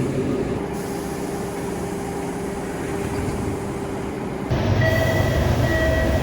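MBTA Orange Line subway train standing with a steady rumble and a low electrical hum. About four and a half seconds in the background changes abruptly and the car's exterior door chime sounds two beeps, about half a second each.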